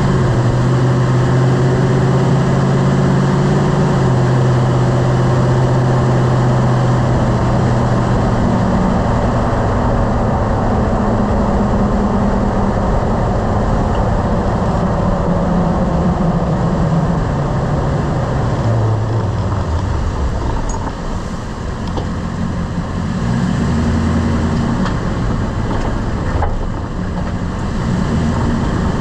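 Lifted pickup truck driving: steady engine hum and road noise, the engine's pitch falling as the truck slows a little over halfway through, then picking up again near the end.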